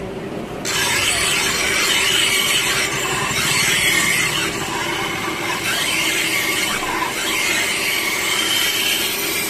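Steel hedge-shear blade being ground against a large spinning sharpening wheel: a steady, scratchy rasping grind that starts about a second in, over the hum of the running wheel.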